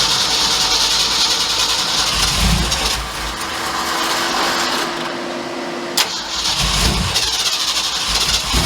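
Truck's V8 engine running with a loud hiss, with one sharp click about six seconds in.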